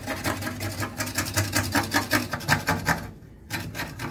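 Hand scraper scraping old paint off a Toyota FJ40 steel body panel in quick, rasping strokes, about four a second, with a short break about three seconds in before the scraping starts again.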